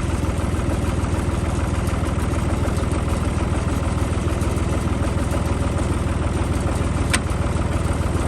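Farm tractor engine running steadily at an even speed, with one short sharp click about seven seconds in.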